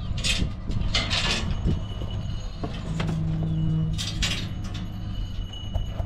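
A vehicle or machine engine running with a steady low rumble, with a few short hissing bursts over it.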